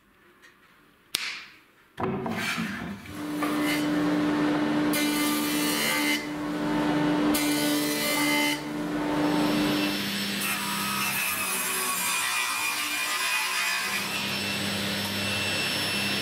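A sharp knock about a second in, then stationary woodworking machines running and cutting wood: a jointer planing a board's edge, then a table saw, the steady hum dropping in pitch about ten seconds in.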